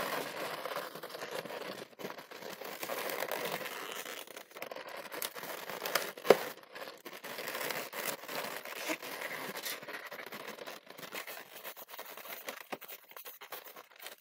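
Latex modelling balloons rubbing and creaking against each other as a long balloon is twisted and wrapped around bubble twists, with many small clicks and one sharp, loud sound about six seconds in.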